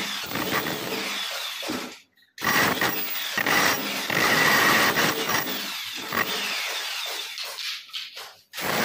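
Electric demolition hammer chiselling a channel into a plastered masonry wall for concealed wiring, a loud harsh hammering. It stops briefly about two seconds in, starts again, and dies away shortly before the end.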